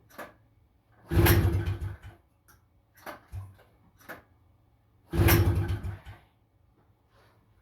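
Two pulls on the recoil starter of a 1977 Honda FL250's two-stroke single, each about a second long, turning the engine over without it catching, with a few lighter knocks between them. The engine won't start, and the owner puts it down to the carburetor.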